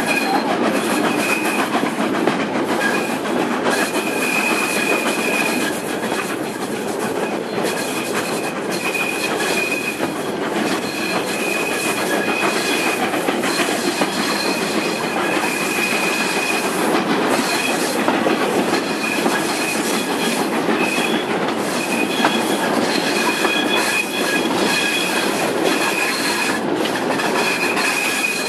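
Wheels of old passenger carriages running along a curving track, heard from an open carriage window: a steady rumble and clatter over the rails, with a high wheel squeal that comes and goes as the wheels grind through the curves.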